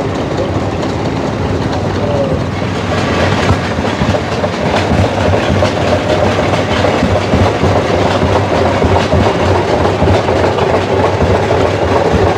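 Antique steel-wheeled tractor's engine chugging with an even rhythmic beat as it drives slowly past, growing louder a couple of seconds in as it comes close.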